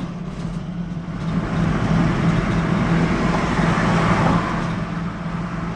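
H500 light-truck motorhome driving on the road: a steady engine drone with road and tyre noise that swells for a few seconds in the middle, then eases.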